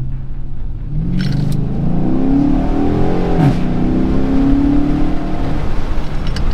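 2019 Dodge Charger Pursuit's 5.7-litre Hemi V8 at full throttle through an exhaust with the rear mufflers deleted. The revs climb, drop sharply at an upshift about three and a half seconds in with a burble from the exhaust, then climb again before easing off.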